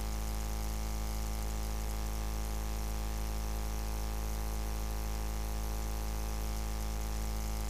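Steady electrical hum with a faint hiss, unchanging throughout, with no crowd or commentary.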